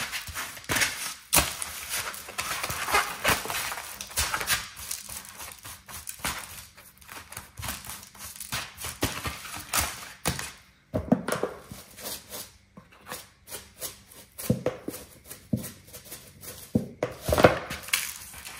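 Hands rubbing and patting dry seasoning into raw beef: an irregular run of rustles, slaps and small knocks, quieter for a few seconds midway.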